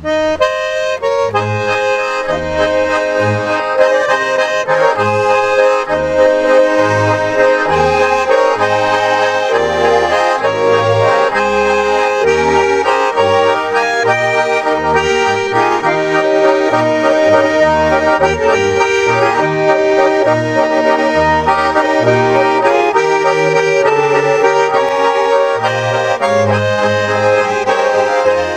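Three Schwyzerörgeli, Swiss diatonic button accordions, playing a folk tune together, the melody over a bass that steps along in a steady rhythm.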